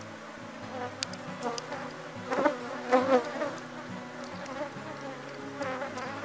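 Honeybees buzzing in a steady swarm around an open hive, the colony more defensive than usual. Single bees fly close past with louder, wavering buzzes about two and a half and three seconds in.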